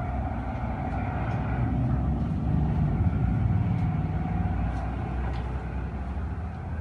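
A motor vehicle's engine rumbling, swelling to its loudest about halfway through and easing off toward the end.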